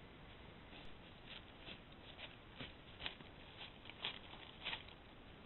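Faint, irregular rustling and soft crackles, about a dozen light ticks spread over a few seconds, like small movements in dry leaves or brush.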